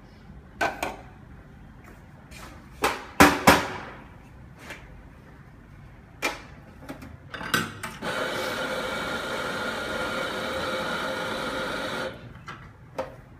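A portafilter is rapped sharply against a knock box, twice in quick succession, with a few lighter knocks around it. An espresso grinder then runs with a steady whirr for about four seconds, grinding coffee and cutting off sharply.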